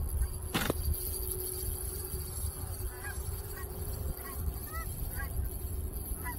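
Geese honking, a scatter of faint short calls, over a steady low wind rumble on the microphone, with one sharp click about half a second in.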